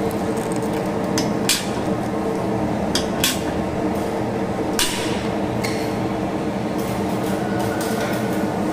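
Hand blind-rivet gun being squeezed to set a blind rivet in a galvanized metal stud, giving about half a dozen sharp metallic clicks, the loudest about one and a half seconds in. A steady hum runs underneath.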